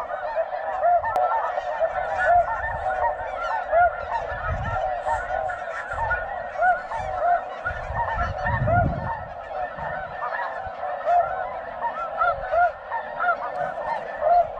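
A huge flock of snow geese calling overhead: many short, high, yelping honks overlapping into a continuous din.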